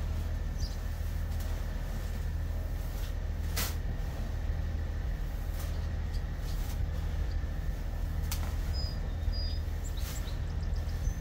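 A steady low rumble, with a few sharp knocks and scrapes as livestock feed is stirred by hand in a plastic tote; a couple of short high chirps about nine seconds in.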